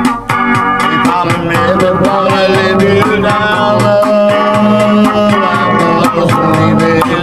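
A song: a man singing without clear words over guitar and a steady drum beat.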